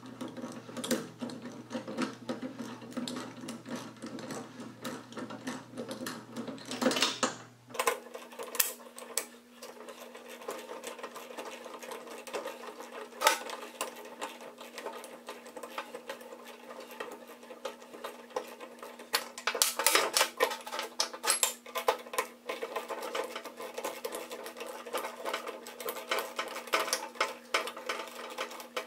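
Rapid, irregular metallic ticking and clinks of hand tools working a bolt on the mower deck's steel adjustment bracket, over a steady background hum that changes pitch about eight seconds in.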